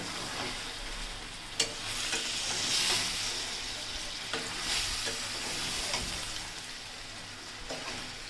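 Chicken curry masala sizzling in hot oil in a pan while it is stirred and turned with a spatula, a steady frying hiss. There is a sharp clack of the spatula against the pan about a second and a half in, and a few lighter knocks later.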